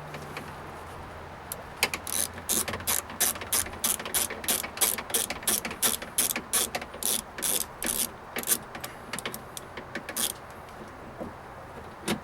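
Ratchet wrench clicking steadily, about three clicks a second, as it turns a fastener, then stopping about ten seconds in.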